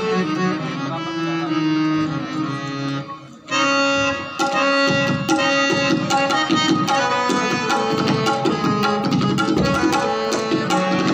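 Harmonium playing a sustained melodic line, with the tabla coming in about four seconds in with quick, dense strokes over it: a tabla solo in teen taal, the 16-beat cycle, with harmonium lehra accompaniment.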